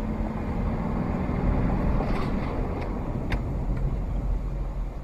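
A car driving: steady low engine and road rumble heard from inside the moving car, with a steady hum over the first couple of seconds and a few short sharp clicks a little past the middle.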